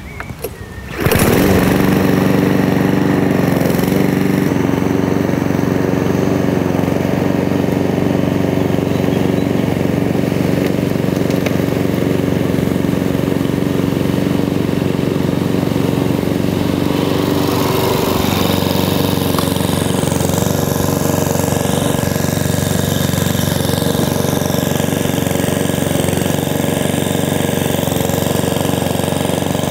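A Mountfield SP164 self-propelled four-stroke petrol lawn mower starts about a second in and then runs steadily while cutting grass at its lowest blade height. Its engine note shifts slightly about two-thirds of the way through.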